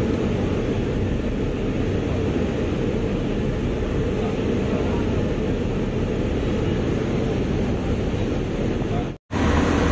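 Passenger ship under way: a steady rush of foaming water along the hull, mixed with a low drone from the ship. The sound breaks off for a moment near the end.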